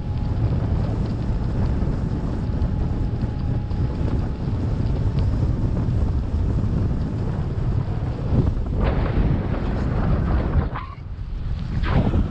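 Wind buffeting the microphone: a steady low rumble of rushing air, with louder crackling rustles about nine seconds in and again near the end.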